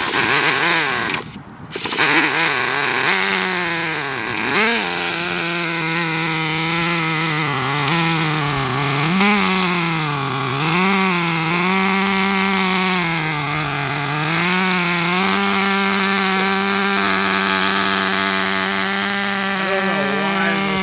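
Traxxas TRX 3.3 nitro two-stroke engine running rough, its pitch surging up and down again and again as it struggles to hold an idle, then settling to a steady pitch about fifteen seconds in. It cuts out briefly about a second in.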